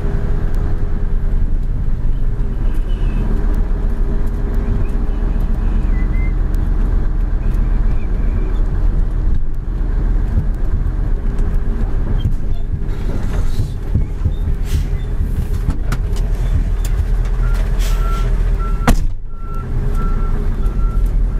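A Mitsubishi Fuso truck's diesel engine runs steadily, heard from inside the cab while the truck drives over a rough dirt surface, with scattered cab rattles and knocks. Near the end there is a sharp clack and the engine sound briefly drops, and a repeated short beep starts.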